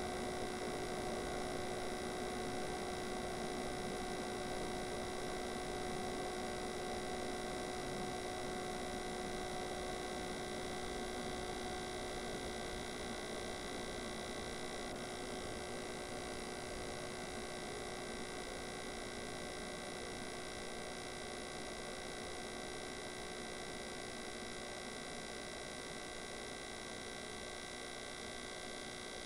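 A steady hum made of several held tones over a faint hiss, slowly getting quieter.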